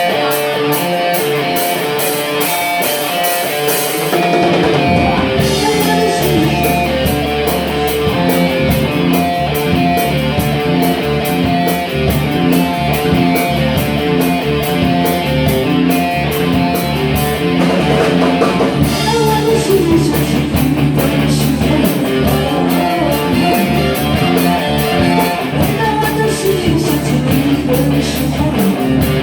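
Instrumental music with guitar and a drum kit keeping a steady beat: the introduction of the song before the vocal comes in.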